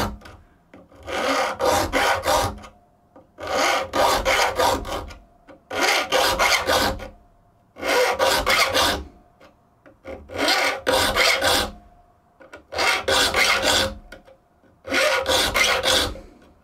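Triangular saw file rasping across the steel teeth of a crosscut hand saw while sharpening it. It comes in short spells of a few strokes about every two seconds, with pauses between as the file moves on to the next gully.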